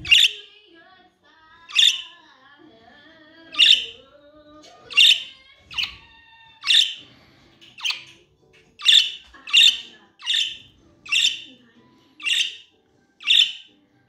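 Pet budgerigars giving short, sharp chirping calls over and over, about a dozen in all. The calls come roughly one every second or two at first and quicker in the second half.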